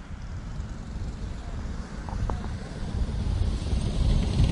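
A pack of go-kart engines running at slow caution pace, a low rumble that grows steadily louder as the karts come around toward the microphone.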